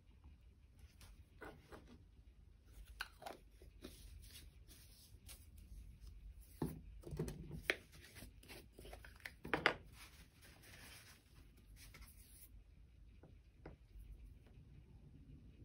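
A paper tissue rustling and crinkling as acrylic paint is wiped off a dotting tool, in irregular bursts that are loudest about two-thirds of the way through. A few faint clicks follow near the end.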